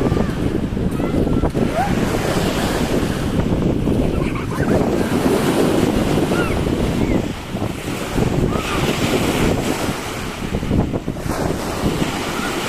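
Waves breaking on a beach as a steady rush of surf, with wind buffeting the microphone.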